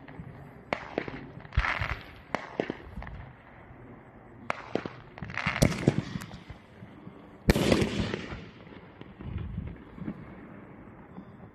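Winda P8047 Black Site Armaments aerial firework firing: a run of sharp cracks in quick succession and several longer rushing bursts, the loudest about seven and a half seconds in, dying down near the end.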